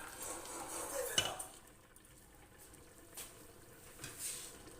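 A cooking utensil knocking against a pot while stirring: one sharp knock about a second in, then a few lighter taps.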